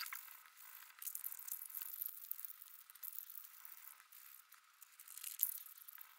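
Faint crackly crinkling of banknotes being scrunched and worked in the hands, with a louder flurry of crackles about five and a half seconds in.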